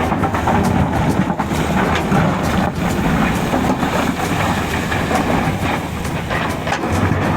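Heavy earth-moving machine working: a steady engine hum with frequent metallic clanks and rattles throughout.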